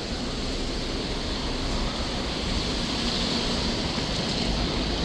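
Steady rushing noise of street traffic, with a deep rumble and an even hiss and no distinct events.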